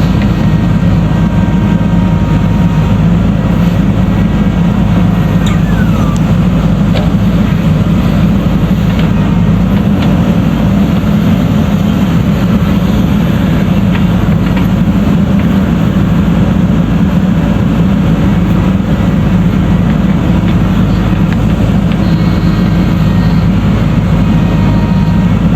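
Heavy diesel engine of a JCB backhoe loader running steadily under working load, a constant low hum.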